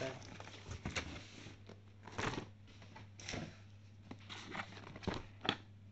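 Cardboard keyboard box and packaging being opened and handled: irregular rustles and scrapes with a few sharp knocks.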